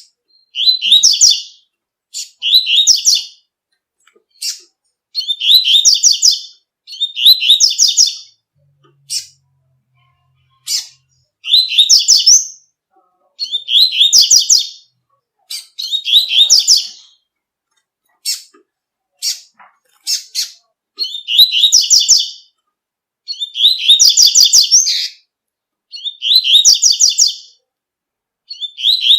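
Coleiro (double-collared seedeater) singing the tui-tui song: phrases of rapid high notes about a second long, repeated every one and a half to two seconds, with single short chips between them.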